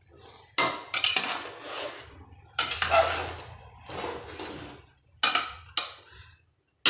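Metal spoon scraping and knocking against a metal cooking pot while cooked rice is mixed through, in four sudden strokes that each fade away, the last two close together. The rice is being turned once before the pot is covered to steam on dum.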